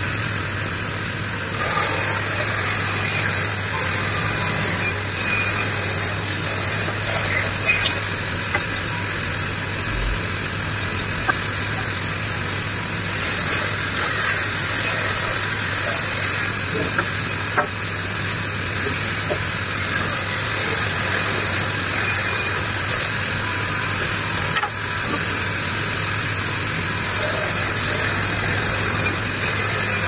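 Large band saw running steadily while an old wooden beam is fed through its blade: a constant motor hum under the hiss of the blade cutting wood.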